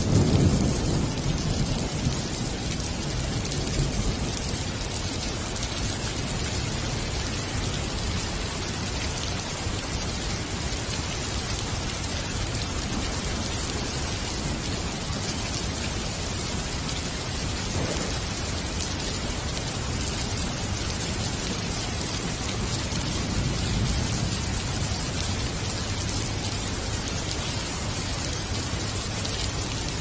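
Steady rain falling, with a low rumble of thunder in the first couple of seconds and again a little past the middle.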